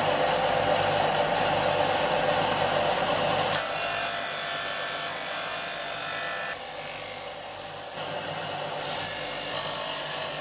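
Ryobi bench belt-and-disc sander running, with plywood pressed against its sanding disc: the motor hums under the steady rasp of abrasive on wood. The sanding noise drops a little about halfway and rises again near the end.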